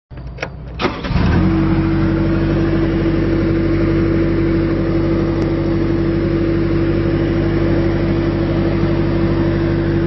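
The Kubota four-cylinder diesel engine of a 2012 Bobcat S175 skid steer. A few knocks and a rough, uneven sound in the first second are typical of the engine catching, and it then runs with a steady, even hum.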